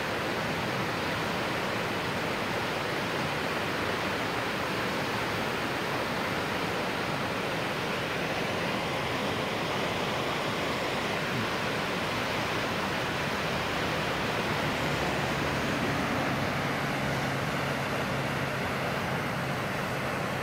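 Muddy monsoon floodwater rushing steadily down a flooded creek, churning through standing waves along an eroding cut bank.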